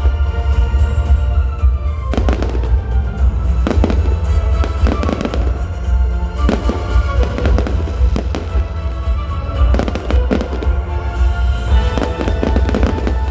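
Fireworks display: a steady stream of bangs and crackling bursts with a heavy low booming, over loud show music.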